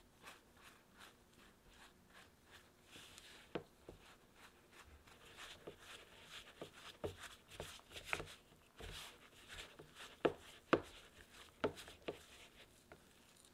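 Spatula folding stiff butter-and-flour dough in a mixing bowl: soft scraping and squishing with irregular light knocks of the spatula against the bowl, the sharpest few a little past the middle.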